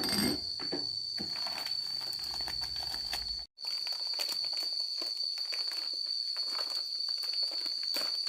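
Steady high-pitched insect drone, broken by a brief dropout about three and a half seconds in, with scattered light clicks and scrapes over it.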